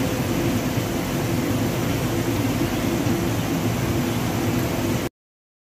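Steady hum and hiss of aquarium equipment, cutting off suddenly about five seconds in.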